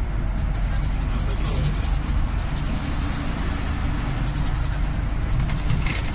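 Steady low engine and road rumble heard from inside a moving vehicle in city traffic.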